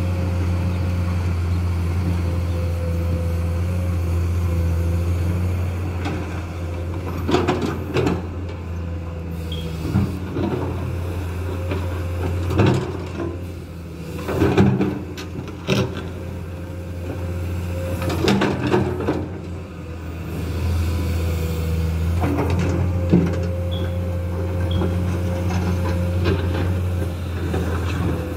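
Komatsu PC210 excavator's six-cylinder diesel engine running steadily under digging load, dipping briefly twice. Clusters of sharp knocks and scrapes from the bucket and boom come several times as the bucket digs and drags through sandy ground.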